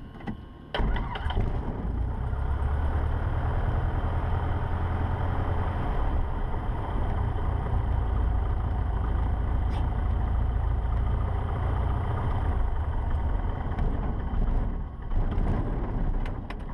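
Cessna 150's Continental O-200 engine comes in loudly about a second in and runs steadily, heard from inside the cabin, with a brief dip near the end. The throttle is at full idle, so pulling the mixture doesn't stop it: fuel still sneaks past the carburettor's idle bypass and the engine doesn't want to die.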